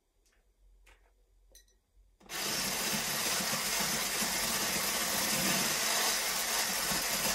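A few light handling clicks, then, about two seconds in, an electric hand blender with a whisk attachment switches on and runs steadily, whipping shea butter in a glass jar.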